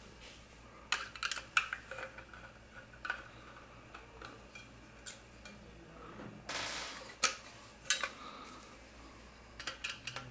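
Sharp metallic clicks and clatters of a steel hard-drive cage being handled and a screwdriver working at its screws, with a short scraping sound about six and a half seconds in.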